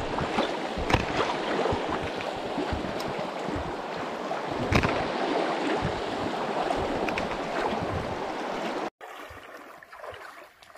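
Stream water rushing close by, a steady, even rush with a few short knocks in it. It cuts off suddenly near the end, leaving a much quieter background.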